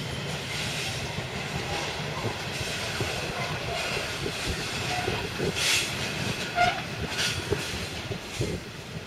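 Loaded coal hopper wagons rolling past on a curve, wheels clicking over the rail joints under a steady rumble, with a couple of short high wheel squeals a little past the middle. The sound fades slowly as the train's tail draws away.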